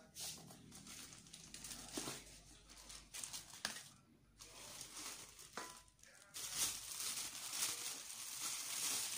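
Plastic wrapping and cardboard packing crinkling and rustling as they are handled and pulled out of a stainless steel mixer bowl, in irregular crinkles with small clicks, busiest and loudest over the last three seconds.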